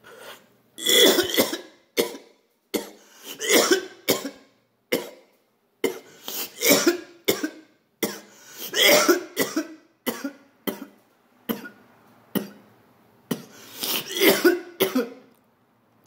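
A man in a coughing fit after inhaling cannabis smoke: a long run of harsh coughs, about one a second, some in quick pairs, stopping shortly before the end.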